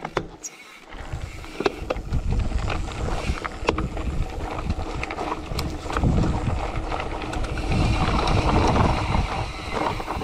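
Mountain bike riding down a rough, rocky dirt trail: tyres crunching over stones and the bike rattling over bumps, with wind rushing over the action camera's microphone. The noise grows louder from about a second in.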